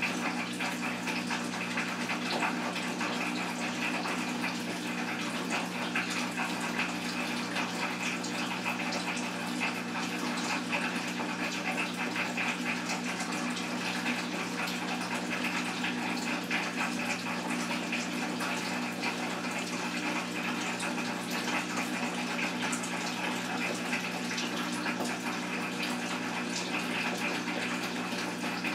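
Steady rushing noise like running water, over a low, even hum.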